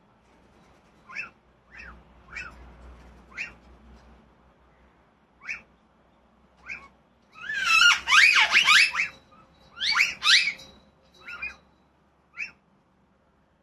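Birds calling: a string of short, separate chirps, then a loud burst of rapid squawking calls past the middle, a second shorter burst soon after, and a couple of last chirps.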